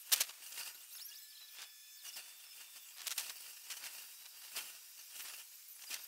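Irregular short clicks and crackles over a faint outdoor background hiss, with a thin steady tone held from about a second in to nearly three seconds.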